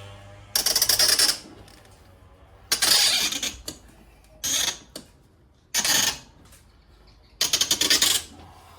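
A seized, 40-year-old bolt in a caravan roof hinge being forced round with a screwdriver, grating metal on metal in five short bursts of about half a second to a second each: the jammed bolt is starting to turn.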